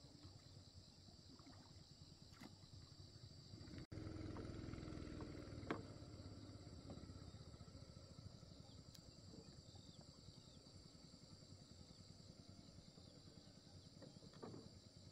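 Near silence: faint outdoor ambience with a steady high hum, and one sharp knock a little before six seconds in.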